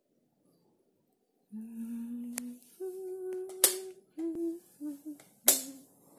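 A person humming a short tune in steady held notes, starting about a second and a half in: a low note, then a higher one, then shorter notes stepping back down. Several sharp clicks fall among the notes, two of them loud.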